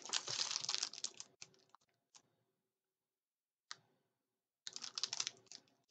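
Small packaging handled at close range: rustling and light clicks of card and plastic in two short spells, with a few lone clicks and a quiet gap of about a second and a half between them.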